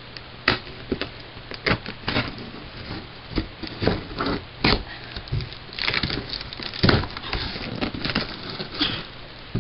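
Clear packing tape on a cardboard box being sliced and scraped open with a small hand-held metal tool: irregular crackles, scrapes and taps of the tool against tape and cardboard, with brief tearing of tape.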